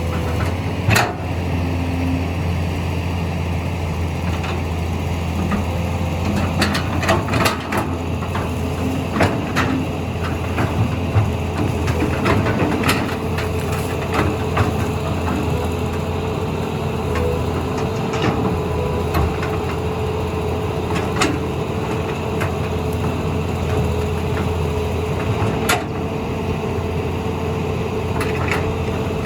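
Heavy machine's diesel engine running steadily, with scattered sharp cracks and knocks throughout.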